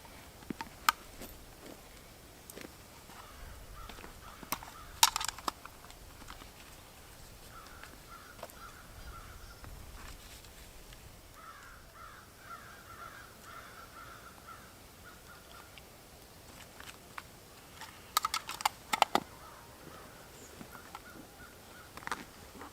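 Crows cawing in repeated bouts of harsh calls, with a few sharp clicks or snaps, the loudest about five seconds in and again around eighteen to nineteen seconds.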